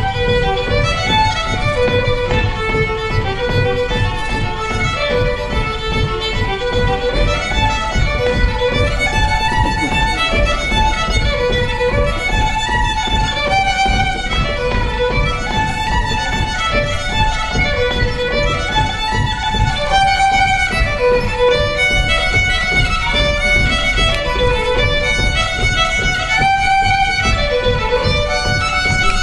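Fiddle playing an Irish traditional jig: a continuous stream of quick bowed notes in repeating melodic phrases.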